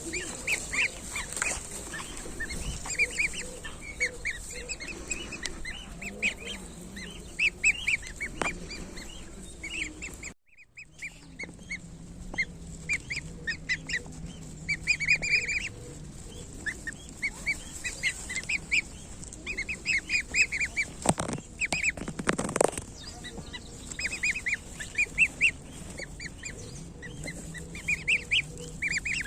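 A group of one-week-old goslings peeping: many short, high calls overlapping and repeating, with a brief break about ten seconds in.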